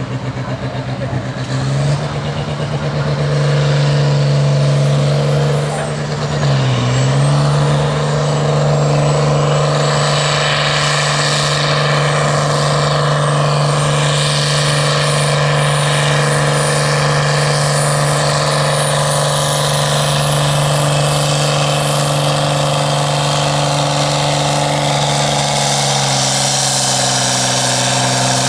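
Competition pulling tractor's engine under heavy load during a pull: it revs up, dips briefly about six seconds in, then holds high, steady revs for about twenty seconds. A thin high whistle slowly rises in pitch over the run.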